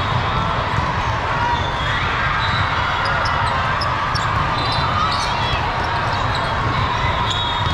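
Volleyball tournament hall at full play: a steady din of many voices echoing in the large hall, with volleyballs being struck and bouncing on the courts and short high squeaks scattered throughout.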